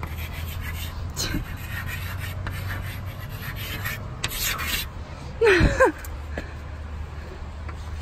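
Stick of chalk rubbing and scraping across a chalkboard in repeated writing strokes. A short voice-like sound about two-thirds of the way through is the loudest moment.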